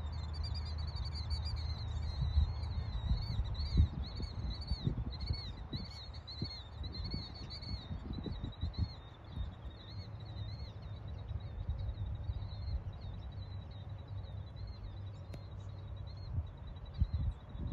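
Small bird calling in a high, wavering series, about two calls a second, thinning to a faint steady note in the second half, over low wind rumble on the microphone with a few louder gusts.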